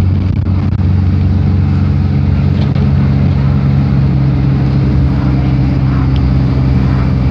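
Dennis Dart single-deck bus's diesel engine driven hard at speed, heard from inside the saloon as a loud, steady low drone over road noise.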